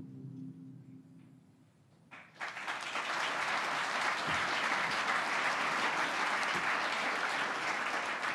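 Audience applauding: the clapping breaks out suddenly about two seconds in and stays steady and dense.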